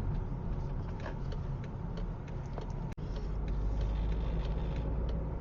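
Car cabin noise while driving: a steady low rumble of engine and tyres, with a few light ticks. The sound cuts out for an instant about three seconds in.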